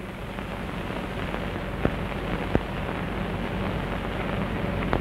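Steady hiss and crackle of an old film soundtrack, with a low hum underneath and a few sharp clicks, the first two about two and two and a half seconds in.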